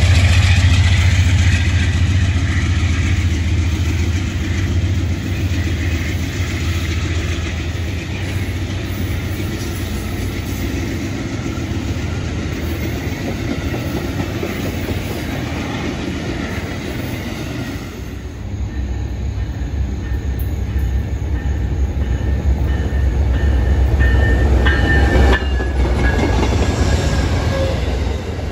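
An Amtrak passenger train passing close by. The GE P42DC diesel locomotive pulls away at the start, then the stainless-steel coaches keep rolling past with a steady wheel-and-rail rumble. A brief high wheel squeal comes near the end.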